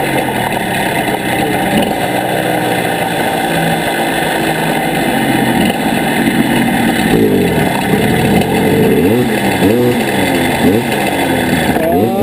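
Motorcycle engine running hard at speed, with a dense rush of wind noise over it. From about seven seconds in, the engine note climbs and drops back several times in a row as the rider accelerates and shifts gears.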